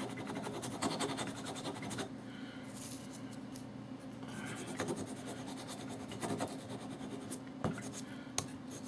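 Hand sanding block rubbed quickly back and forth on the corner of a small wood strip, beveling off the sharp edge. It makes a steady scratchy rasp, with a couple of sharper clicks near the end.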